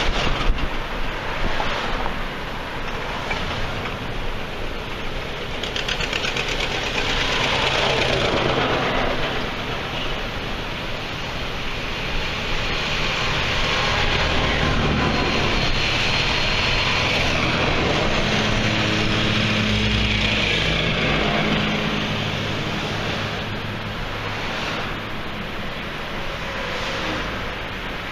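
Wind and road noise from a moving car, with the engines of a column of passing tractors. The tractor engines are loudest about halfway through, as a red International Harvester tractor goes by close.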